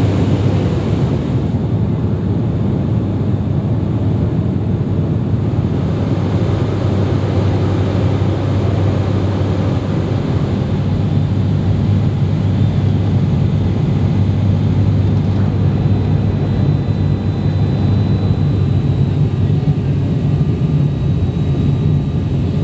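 Cabin drone of an ATR 42-500's Pratt & Whitney PW127 turboprops and six-blade propellers during the descent: a steady, deep propeller hum over a constant rush of air.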